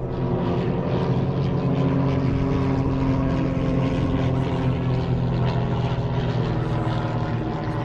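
Piston engine and propeller of a Pitts Special aerobatic biplane, a steady drone with slight shifts in pitch as it flies its display.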